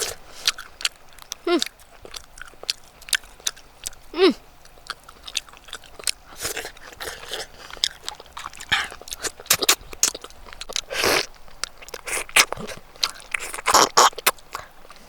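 A person eating, with irregular crunching and chewing clicks, probably the cooked fish. There are two brief falling vocal sounds about one and a half and four seconds in.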